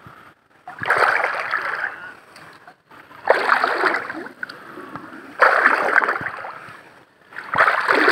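Shallow water and mud splashing and sloshing as a person crawls and digs by hand, in four bursts about two seconds apart.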